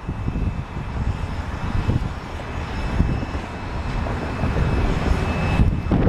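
Steam locomotive No. 60 working steam as it starts to pull its train: heavy, uneven exhaust chuffs from the stack and hissing steam from the open cylinder cocks. The sound is loud and continuous.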